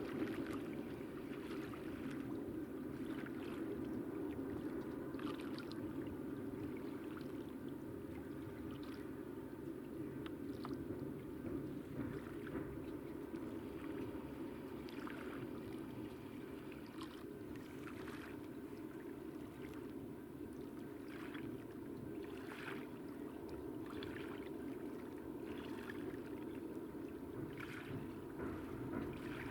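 Freight train rolling across a railway bridge: a steady rumble with wheels knocking over the rail joints, roughly one knock every second and a half from a few seconds in.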